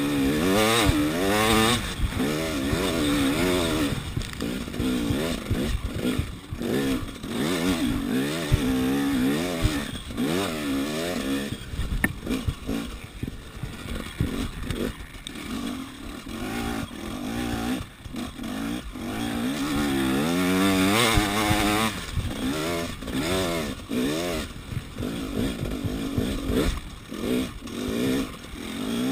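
KTM 300 EXC two-stroke single-cylinder engine being ridden hard, revving up and falling off again over and over as the throttle is worked. A few sharp knocks come through the noise.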